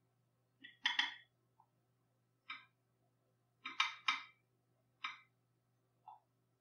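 Short, sharp clicks from typing on a VOYO i8 Pro tablet's touchscreen keyboard: about seven key taps at an uneven pace, two of them in quick pairs.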